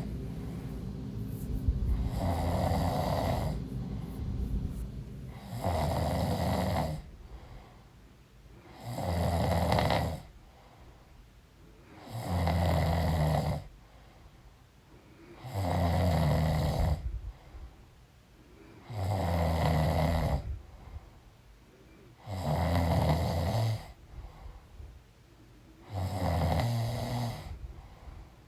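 A pregnant woman snoring in deep sleep: a low buzzing snore on each breath, repeating about every three and a half seconds, each lasting about a second.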